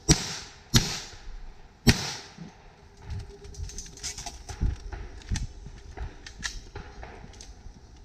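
Three loud gunshots at close range in the first two seconds, the gaps growing longer between them, each followed by a short echo. After them come a string of softer clicks and knocks.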